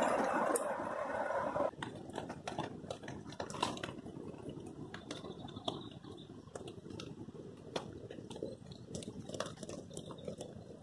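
Rain falling on a nylon tarp shelter. A dense steady hiss of rain cuts off about a second and a half in, giving way to a softer hiss with many irregular sharp taps of drops on the tarp overhead.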